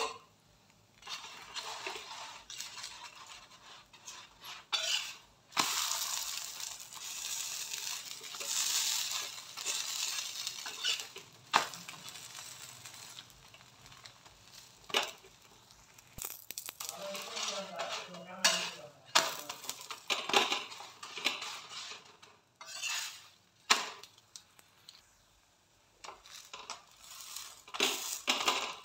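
A rice-flour paratha frying in ghee on a flat tawa, sizzling in long stretches, while a steel spatula presses it and scrapes and clicks against the griddle.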